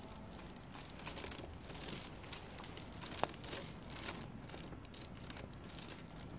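Rustling and handling noise from a handheld phone being carried, with scattered soft clicks and scuffs and one brief sharp squeak about three seconds in.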